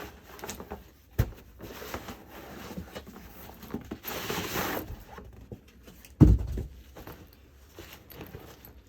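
A camera bag being handled and unzipped: scattered clicks and rustles, a sharp knock about a second in, a zipper pulled for under a second around the middle, and a heavy thump a little after six seconds.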